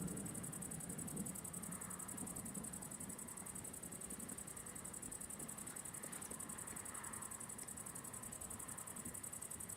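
The tail of a distant thunder rumble dies away in the first second or so, leaving a faint steady hiss.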